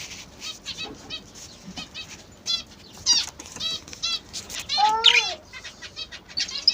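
A flock of small ornamental cage birds chirping busily, with many rapid, high, overlapping calls, and one louder, lower, falling call about five seconds in.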